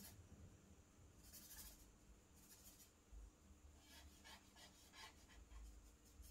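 Faint scratching of a charcoal stick drawn across paper. It starts with a couple of longer strokes, then a run of quick short strokes about four seconds in.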